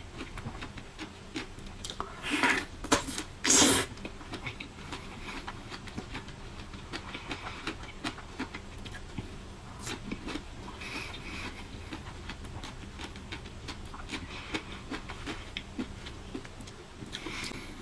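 A person chewing and eating fruit close to the microphone: a run of small wet mouth clicks and smacks, with two louder noisy bursts about two and three and a half seconds in.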